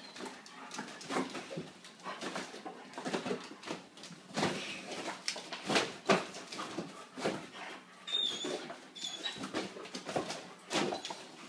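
A Great Dane going at a foil (Mylar) balloon: irregular crinkling rustles and sharp knocks, with a couple of short high squeaks about eight seconds in.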